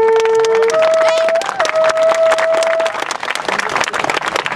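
Long held notes from a wind instrument: two sustained pitches together, then a single note with a brief dip in pitch that stops about three seconds in. A dense patter of sharp clicks or claps runs underneath.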